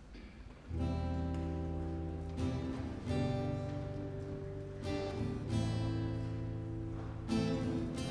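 Acoustic guitar strumming the instrumental introduction to a congregational song, starting under a second in with chords that change every second or two.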